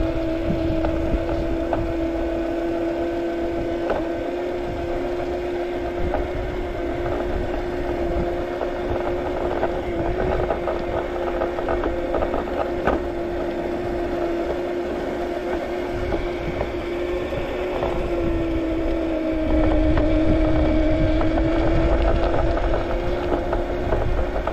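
Razor E150 electric scooter's brushed motor and chain drive whining steadily under way at about 7 to 8 mph on a 6-cell lipo, over low wind and tyre rumble. The pitch sags briefly near the end as the rumble grows louder.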